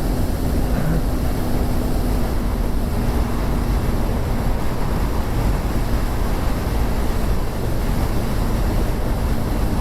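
Wind rushing over the microphone as a KTM 390 Duke is ridden at speed. The single-cylinder engine runs underneath at a steady pitch.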